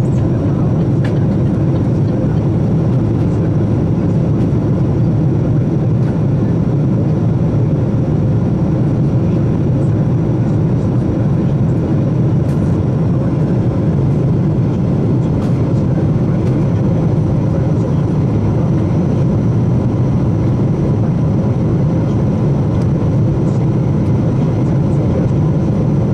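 Airliner cabin noise in flight from a window seat: the jet engines and rushing air make a steady, even low rush with a faint steady hum, unchanging throughout.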